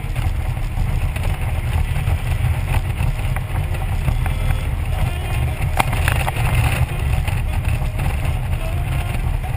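Steady low rumble of wind and road noise from a touring motorcycle cruising along a road, recorded from a camera on the bike, with one sharp click about six seconds in.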